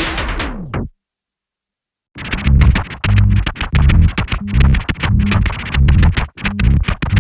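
Electronic music: one track cuts off just under a second in, then after about a second of silence a new synthesizer and drum-machine track starts with a steady beat and a pulsing bass line.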